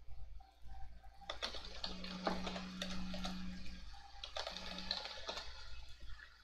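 Typing on a computer keyboard: two bursts of quick keystrokes, each the length of a short word, with a brief pause between them.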